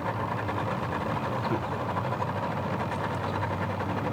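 An engine running at a steady idle, its even low pulse unchanging throughout.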